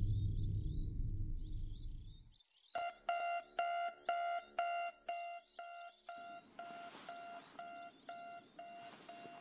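Digital alarm clock beeping in quick short beeps, about three or four a second, starting about three seconds in, louder at first and softer after about six seconds. Before the beeping, a low rumbling drone cuts off.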